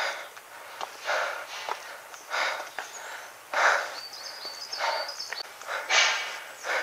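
Heavy breathing of a hiker climbing stone steps, a loud breath about every second and a bit, with light taps and scuffs of shoes on the granite steps in between.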